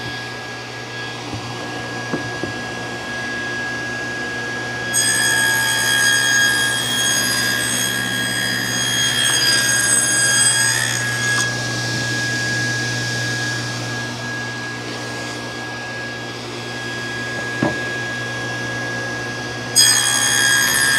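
Table saw running steadily with a high whine. About five seconds in, the blade cuts into a board fed on edge, cutting the cheek of a tongue, which makes a louder, brighter cutting whine for about six seconds. The saw then runs free until a second cut starts near the end.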